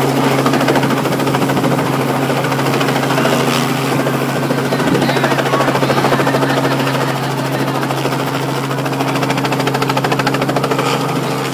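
Light two-bladed helicopter flying low overhead: a loud, steady drone of engine and rotor with a fast rotor beat.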